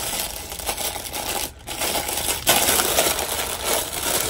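Packaging crinkling and rustling as it is handled and pulled open by hand, a steady rough noise with a short pause about a second and a half in, getting louder near the end.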